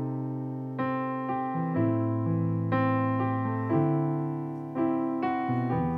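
Piano voice on a Yamaha MOXF8 synthesizer keyboard playing slow, sustained chords, a fresh chord struck every second or so.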